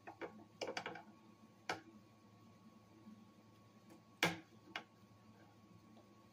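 A few sharp clicks and light knocks, a quick cluster near the start and the loudest a little past four seconds in. This is a measuring caliper being slid and set against an acoustic guitar's neck to take its width.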